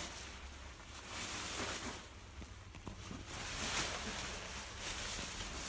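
Tent fabric rustling and crinkling as it is handled, in two stretches with a few small clicks.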